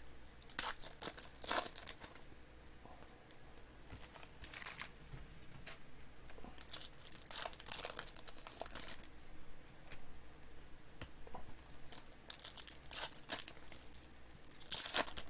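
Trading card pack wrappers being crinkled and torn open, with cards being handled, in irregular bursts of rustling.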